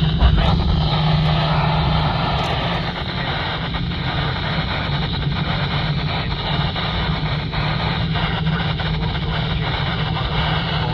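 Steady hiss with a strong low hum on a weather radio broadcast, with no voice.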